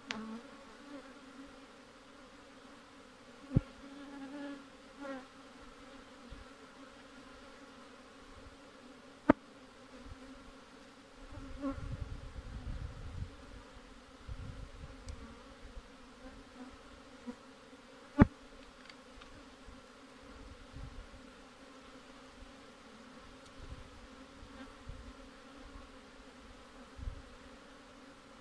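A mass of honeybees buzzing around an open hive, a steady drone. Three sharp knocks cut through it, the loudest sounds here, as the wooden frames are worked.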